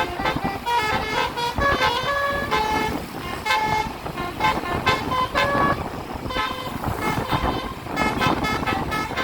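Telolet basuri multi-tone bus horn playing a quick tune of short notes that jump in pitch, over road and engine noise.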